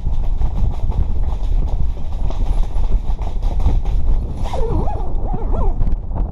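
Heavy wind buffeting the microphone, with rapid irregular clicking and rattling throughout. A few brief wavering whistle-like tones come about four and a half seconds in.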